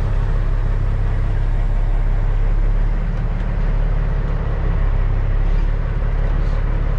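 Cat C15 diesel of a 2006 Peterbilt 379 running steadily under load, heard from inside the cab as the truck pulls its B-train trailers forward.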